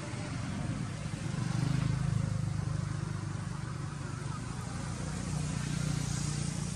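A motor engine running with a steady low hum that swells about two seconds in.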